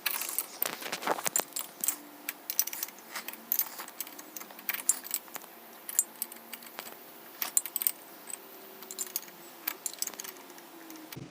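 Loose metal bolts and nuts clinking and rattling irregularly, as a hand rummages through a bin of hardware in search of a bolt.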